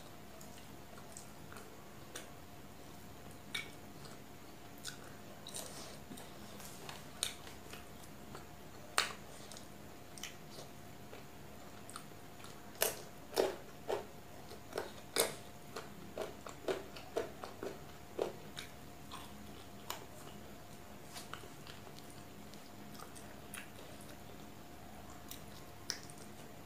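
Close-miked eating sounds of chicken and egg curry with rice eaten by hand: chewing with short wet mouth clicks and smacks, busiest and loudest about halfway through. A faint steady hum runs underneath.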